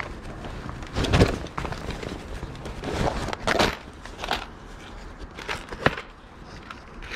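Irregular rustling, clicks and knocks of small items and bags being handled and sorted by hand.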